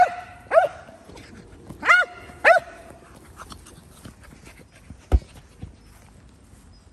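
Staffordshire bull terrier barking four times in two quick pairs, each bark rising then falling in pitch. A single dull thump follows about five seconds in.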